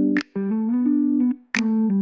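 Instrumental music between sung lines: sustained keyboard chords, with two brief drops to near silence.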